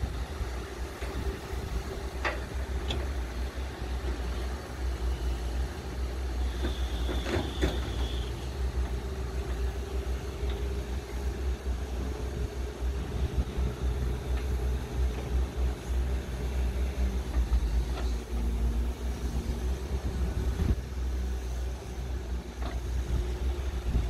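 Diesel engines of two crawler excavators, a Volvo and a CAT, running steadily under load as they dig soil, with a low rumble throughout. A few sharp knocks come from the work, and there is a brief high squeal about seven seconds in.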